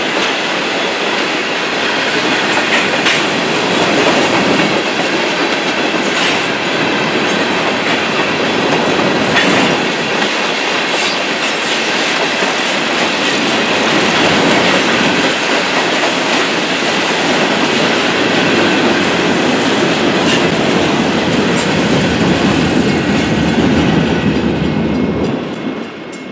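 Freight train of covered hopper cars rolling past at speed, steel wheels clacking over the rail joints. The end of the train passes near the end and the sound falls away.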